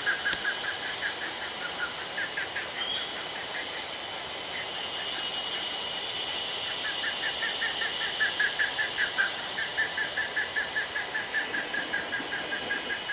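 Forest ambience: a steady high insect drone with a fast pulsing trill of calls repeating through most of it, fading in the middle, and a few brief high bird chirps about three seconds in.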